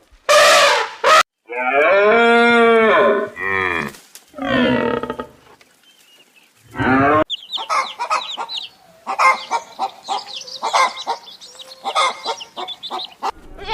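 Cow mooing in a long drawn-out call, among several shorter animal calls, with a run of short rapid calls in the second half.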